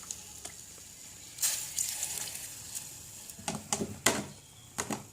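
Food sizzling in a pan, a steady high hiss, with several clicks and knocks of a cooking utensil, a cluster of them near the end.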